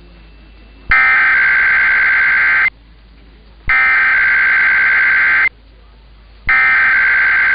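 Emergency Alert System SAME digital header: three bursts of harsh two-tone data warble, each about two seconds long and about a second apart, with the third still sounding at the end. They encode the monthly test message ahead of the attention tone.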